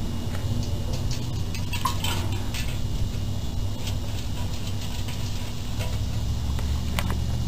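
A raccoon's paws dabbling in a shallow metal tub of water, with scattered light clicks and clinks against the metal, over a steady low hum.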